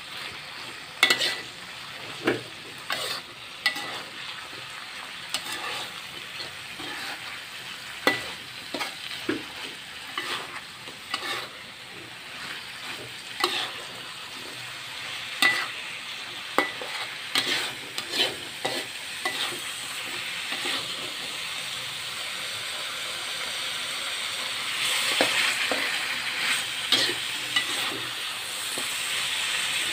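A perforated metal spatula scraping and clacking irregularly against a wok while tempeh fries in a thick sweet-spicy sauce, over a steady sizzle. The sizzle grows louder near the end as the sauce cooks down and dries.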